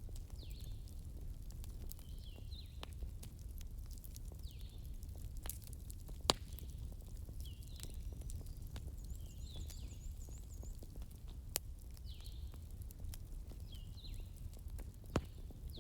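Wood fire burning, with scattered crackles and a few sharp pops over a steady low rumble. Faint high chirps repeat every second or two.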